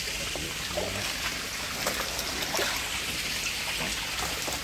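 Water trickling and splashing steadily into a koi tank from its inflow pipework, with a few sharper splashes scattered through.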